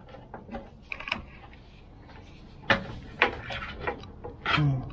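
Handling noise from picking up and fumbling with a torch (flashlight): scattered clicks and knocks, with a louder knock near the end.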